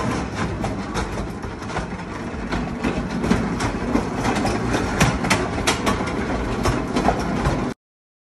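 Loaded manual pallet truck rolling over paving slabs, its wheels rattling and clattering continuously under a stacked pallet of boxes. The sound cuts off abruptly near the end.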